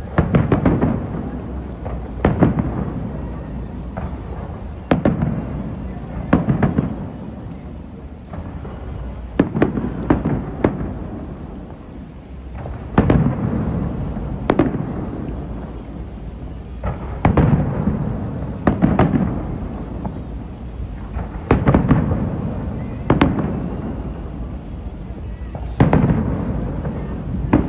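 Aerial fireworks shells bursting in a steady barrage, a loud boom every one to three seconds, each followed by a rolling, echoing rumble that fades before the next.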